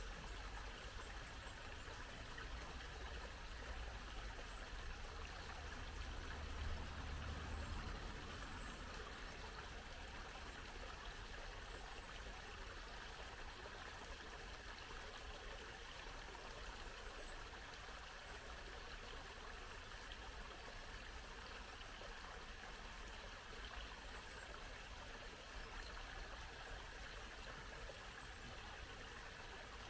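Small brook babbling steadily, water trickling and gurgling over stones.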